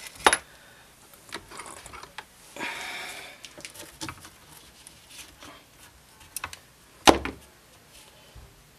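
Handling noises at a workbench: a few sharp clicks and knocks, the loudest about seven seconds in, with a short rustling scrape about three seconds in.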